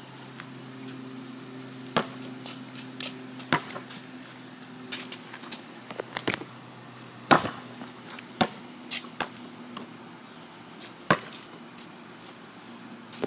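Basketball bouncing on a concrete driveway: a string of irregular sharp thuds, the loudest about seven seconds in, over a steady low hum.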